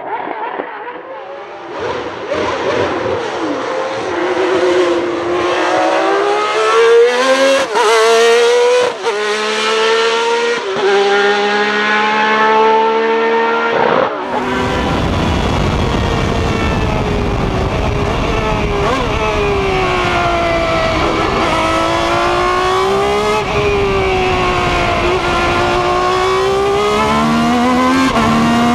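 Ferrari 333 SP's 4.0-litre V12 race engine at full throttle. It is heard first from trackside, accelerating with its pitch climbing in steps through quick upshifts. About halfway through it switches to inside the cockpit with wind and road rumble, the engine note falling and rising again several times as the car brakes and accelerates.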